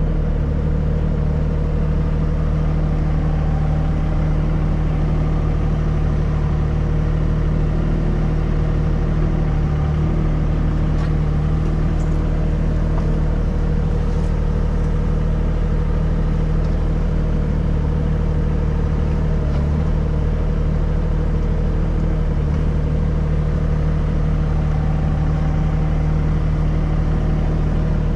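Mini excavator's diesel engine running steadily at working speed while the machine digs a trench and swings its bucket, an even, unchanging drone.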